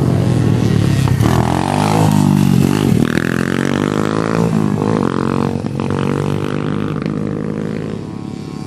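Pit bike engines running, their pitch rising and falling as they rev and ease off.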